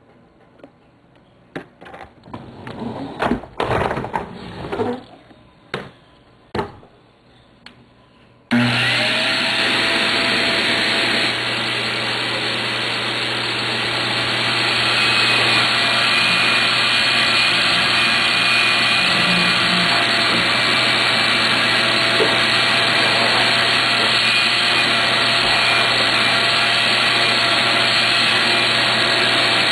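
A few knocks and handling clicks, then about eight seconds in a vacuum cleaner is switched on and runs steadily with a low motor hum.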